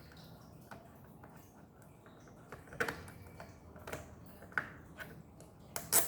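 Small screwdriver backing a screw out of a laptop's plastic bottom case, with faint ticking and a few sharp clicks, the loudest near the end.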